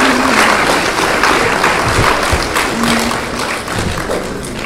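Audience applauding, the clapping gradually fading toward the end.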